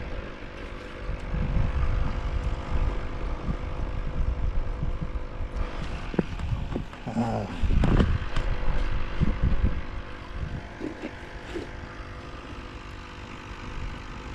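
A steady distant engine drone under low rumbling wind noise, with a few louder knocks and rustles partway through.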